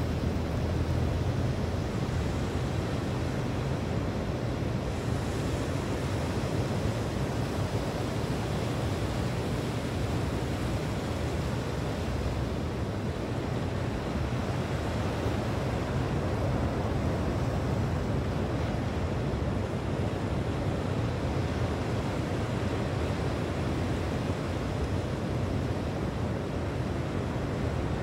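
Steady rush of sea surf and wind, with wind rumbling on the microphone.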